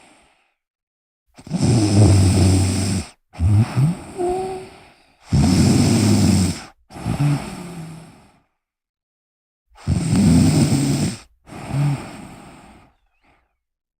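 A person snoring: three breath cycles, each a loud, low buzzing snore followed by a quieter, fading one, with short silent pauses between them.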